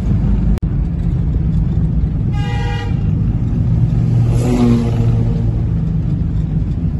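Car engine and road noise heard from inside the moving car's cabin, with a short car-horn toot about two and a half seconds in and a second, lower tone about two seconds after it.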